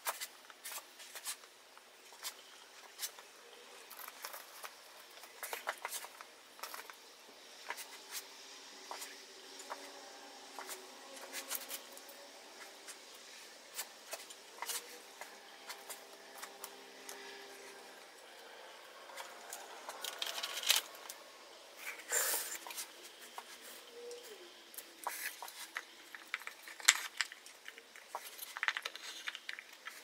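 Wooden staves and a plastic glue bottle handled on a workbench during a glue-up: scattered light clicks and taps, with a few louder knocks and rustles in the second half as the taped staves are folded together.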